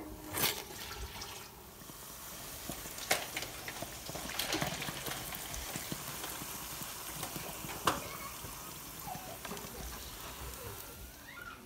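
A bhatura deep-frying in hot oil, sizzling steadily, with a few sharp clicks of a metal slotted spoon against the pan.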